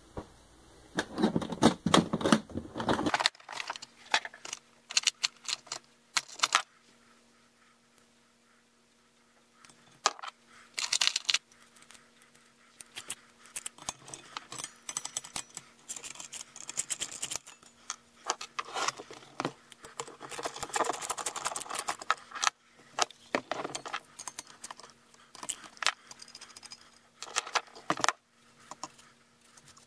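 Hand nut driver unscrewing the bolts that hold the sheet-metal fan shroud on an unpowered Baldor electric motor, then the shroud coming off: intermittent metal clicks, rattles and scraping. The handling is busy for the first few seconds, quiet for several seconds, then resumes.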